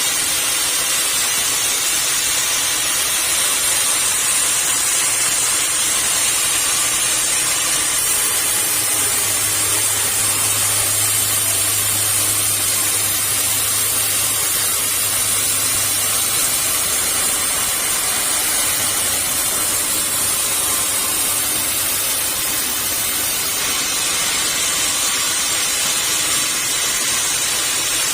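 Sawmill saw cutting acacia wood: a steady, loud hissing rush of the blade in the wood. A low hum from the machine swells about a third of the way through and fades soon after the middle.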